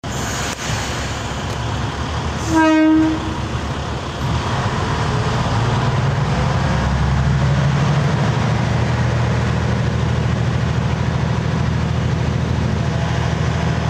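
Diesel railcar departing: a single short horn toot about two and a half seconds in, then the engine's low hum builds as the railcar pulls away from the platform and gathers speed.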